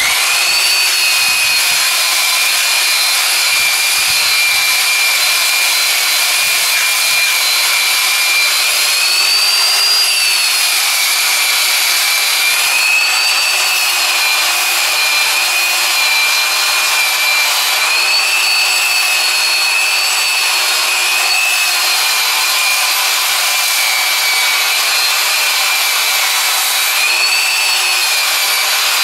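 Makita 9741 wheel sander running under load, its abrasive wheel scouring the weathered surface of an old Douglas fir log. A loud, steady high whine over a rough scrubbing noise, the pitch rising and falling slightly a few times as the wheel is pressed into and eased off the wood.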